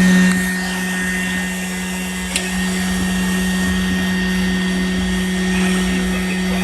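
Motor of a small hobby CNC machine running steadily, a constant hum with a fainter whine above it, with one sharp click about two and a half seconds in.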